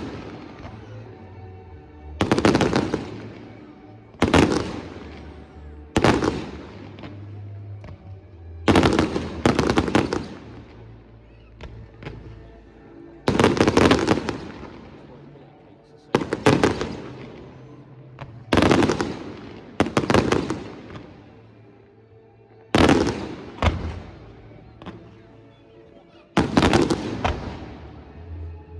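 Fireworks bursting in a display: about a dozen loud bangs, one every two seconds or so, each followed by a long echoing tail, with music playing underneath.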